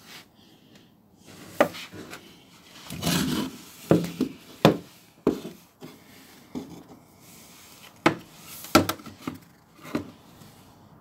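Handling noise from the camera being moved about at close range: irregular sharp knocks and clicks, about half a dozen, with a stretch of rubbing a few seconds in.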